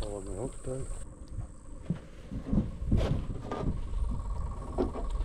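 A short buzzing, croaking sound at the start, then a few knocks and handling sounds on the deck of a small boat while a freshly caught fish is dealt with.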